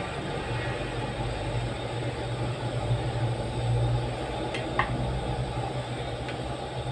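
Steady low rumble and hiss of a pan of coconut-milk soup heating on a stove burner, with a couple of light clicks about five seconds in.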